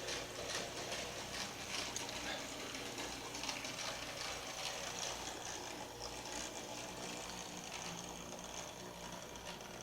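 HO scale Roundhouse kit 2-8-0 model locomotive running on its track: the small electric motor and gear drive whirring steadily, with light irregular clicking from the wheels. It grows gradually quieter over the second half.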